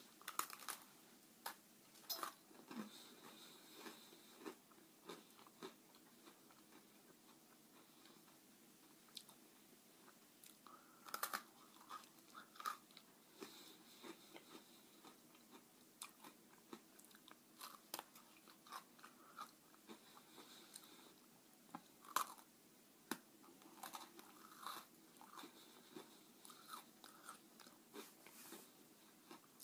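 Someone biting and chewing an Oreo sandwich cookie close to the microphone: a scatter of short, sharp crunches with fainter chewing between them.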